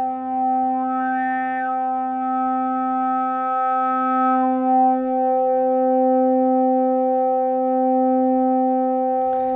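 Two modular analog synthesizer oscillators sounding together as one steady pitched drone with a stack of overtones. Its upper overtones shift a little in the first few seconds and the level wavers slowly, as two oscillators do when they are close to, but not exactly, in tune.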